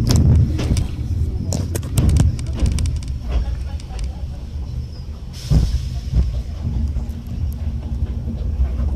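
Enoshima Electric Railway train running along the track, heard from the driver's cab: a steady low rumble with sharp clicks and clacks of the wheels over rail joints, bunched in the first few seconds, and a heavier knock about five and a half seconds in.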